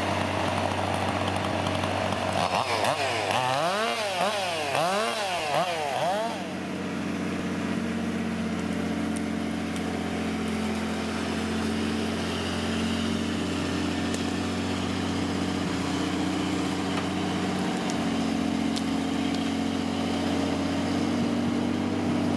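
A chainsaw revved up and down several times in quick succession in the first few seconds, over the steady drone of the crane truck's engine, which runs on evenly after the revving stops.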